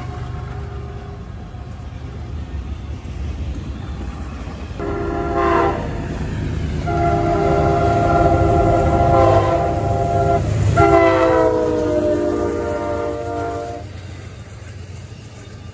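Diesel locomotive's multi-chime air horn over the low rumble of a passing train: a short blast, then two long blasts, the last dropping in pitch as the locomotive goes by.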